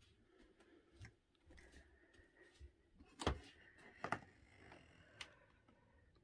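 A quiet room with a few faint footsteps and knocks. The two loudest come a little past three and four seconds in.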